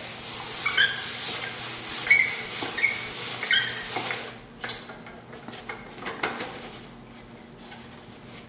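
Hand-cranked rotary glaze sieve being turned, its brushes scraping wet glaze through a 60-mesh screen, with short squeaks. The scraping is loudest for the first four seconds, then quieter with a few sharp clacks.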